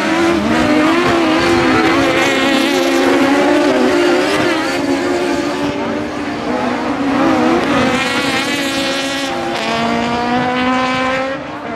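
Several autocross buggy engines racing at high revs together, their pitches rising and falling through gear changes as the pack passes. About three quarters of the way in, one engine's steady note comes to the front.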